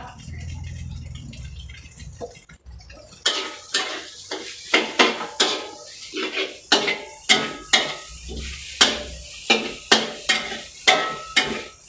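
Metal spatula scraping and knocking against an aluminium wok while stir-frying rice and kale, about two strokes a second, starting about three seconds in.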